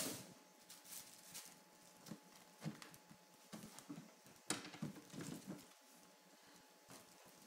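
Faint, scattered taps, scratches and rustles of Himalayan kittens pawing and scrabbling on a plastic-mesh play tunnel and batting a hanging ribbon toy, with a sharp knock at the very start and a busier patch of clatter about four and a half seconds in.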